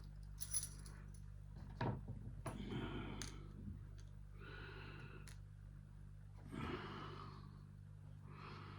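Faint, scattered clicks of small lock parts, the pins and springs of a Lockwood 245 padlock, being handled as it is taken apart, between several soft breaths. A steady low hum runs underneath.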